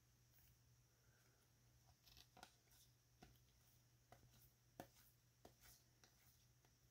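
Near silence, broken by a few faint, short clicks from about two seconds in as baseball cards are slid and flipped through one by one in the hands.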